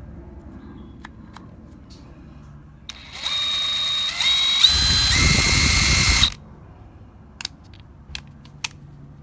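DeWalt DCF894 1/2-inch brushless cordless impact wrench running: the motor whine steps up in pitch, then the wrench hammers for about a second and a half before cutting off suddenly. A few light clicks follow.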